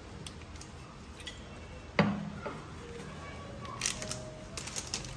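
A glass sauce bottle set down on a stone kitchen countertop with one sharp knock about two seconds in, then brief crinkling clicks of a plastic spice packet being handled near the end.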